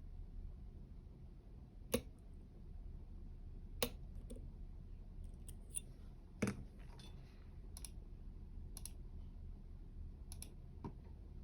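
Sharp metallic clicks, about eight of them at irregular gaps of one to two seconds, from dimple-lock picking tools working the pins of a U-Shin Showa NX three-row dimple lock. A low steady hum runs underneath.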